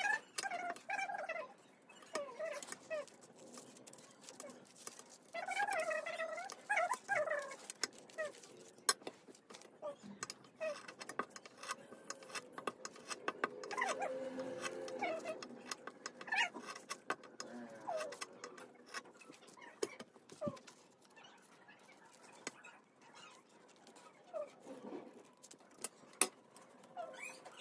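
Scissors snipping crepe paper, with paper rustling and handling clicks. Over them come a few bouts of high, wavering vocal sound, the loudest near the start and around a quarter of the way in.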